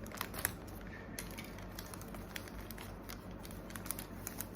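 Scattered light clicks and faint rustling of a small gachapon toy and its packaging being handled, over a steady low hum.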